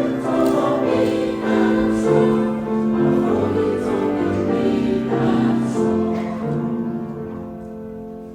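Church choir singing a hymn in sustained chords, the music fading away over the last couple of seconds.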